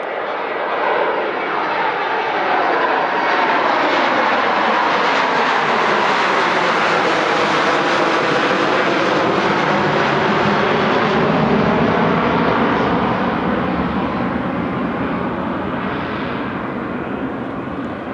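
Boeing 737-200F's two Pratt & Whitney JT8D turbofan engines at take-off power as the jet climbs out past and away: loud jet noise that builds over the first few seconds, holds, then slowly fades toward the end, with a sweeping, phasing quality.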